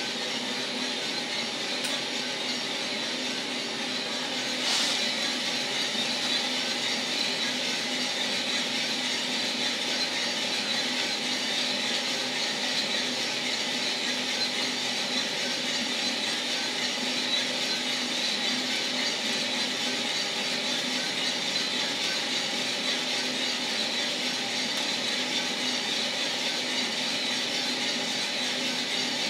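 1 kg Mill City drum coffee roaster running steadily mid-roast, its drum turning a 1 kg batch of beans with a constant fan and motor hum. There is one short click about five seconds in, after which the running is slightly louder.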